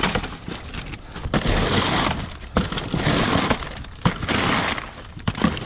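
A small shovel pushing and scooping through dumpster trash, crinkling and rustling plastic bags and snack packets in about four or five strokes, with sharp clicks and knocks between them.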